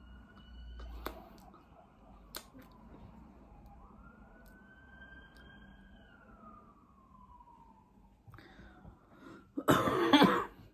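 Faint emergency-vehicle siren wailing, its pitch slowly rising and then gliding down over several seconds. A short, loud burst of noise comes near the end.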